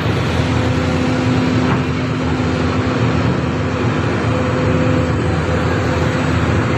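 Diesel engine and hydraulics of a Sumitomo SH350HD hydraulic excavator running steadily under load while it holds a suspended crusher drum, a constant rumble with a steady hum over it.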